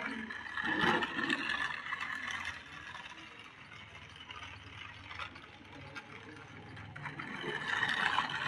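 Battery-powered 1:24-scale toy RC car driving on concrete: its small electric motor whirs while the plastic gears and wheels rattle. It gets louder about a second in and again near the end as the car comes close.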